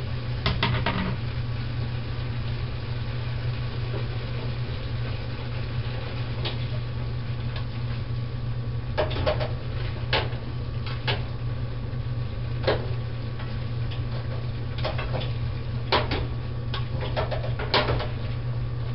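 Utensil clacking and scraping in a frying pan as pasta, rapini and sausage are tossed together: a few knocks just after the start, then more, spread out, from about nine seconds on. A steady low hum underlies it.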